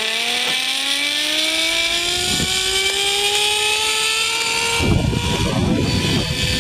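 Zipline trolley pulleys running along the steel cable, a whine that rises steadily in pitch as the rider gains speed. About five seconds in, a rough rumbling noise takes over beneath the fading whine.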